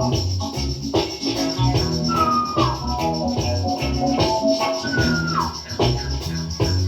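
Reggae track playing: a heavy bass line, steady percussion and keyboard chords, with a high sliding note that falls in pitch twice, about two and five seconds in.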